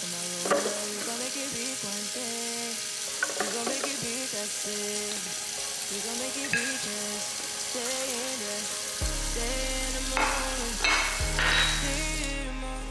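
Background music: a slow melody of held notes, with deep sustained bass notes coming in about nine seconds in, over a steady hiss and a few short clicks.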